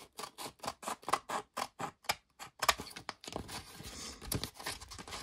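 Quinn shop scissors cutting through a sheet of 150-grit sandpaper: a quick run of crisp snips, about five a second, for the first three seconds. Then softer rustling of the paper sheet as it is handled.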